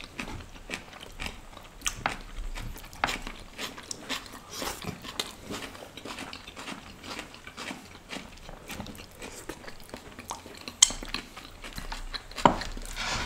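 Two people eating by hand: chewing and biting, with frequent small clicks and taps of food against plates and bowls. There is a sharp click just before eleven seconds in, and a louder rustle near the end as the foil-wrapped rotis are handled.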